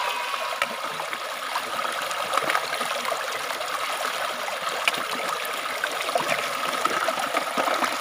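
Clear stream water pouring and splashing over rocks at a small waterfall: a steady rush with a few faint ticks.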